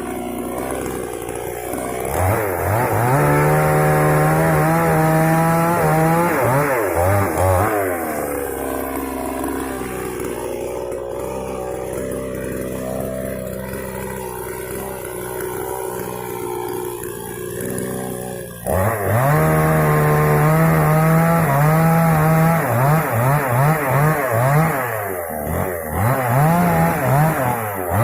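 Moto Yama two-stroke chainsaw revving to full throttle for a few seconds as it cuts dry wood, then settling to idle for about ten seconds. It then revs hard again, ending in a string of short throttle blips.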